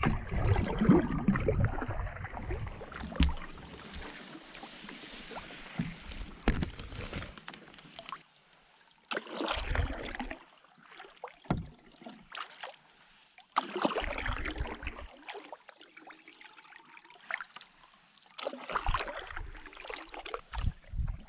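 Canoe being paddled: paddle strokes splash and pull through the water in washes every few seconds, with occasional sharp knocks.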